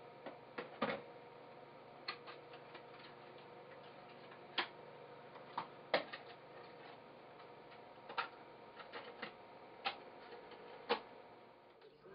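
Scattered short, sharp clicks and ticks at uneven intervals, some in quick clusters, over a faint steady hum.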